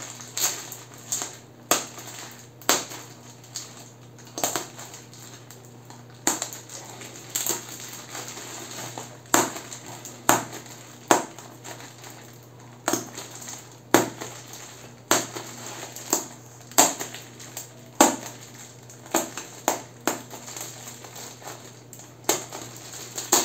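A tightly packed shipping parcel being torn and crumpled open by hand: irregular sharp crunches and crackles, one or two a second.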